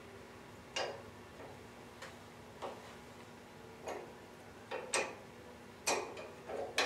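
Ratchet wrench clicking in single sharp clicks, irregularly about once a second and closer together in the second half, as nuts are worked loose on a turbojet's fuel control governor mounting.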